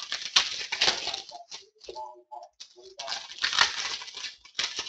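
Baseball trading cards being slid and flipped through by hand, a dry papery rustling in two spells, the second beginning just under three seconds in.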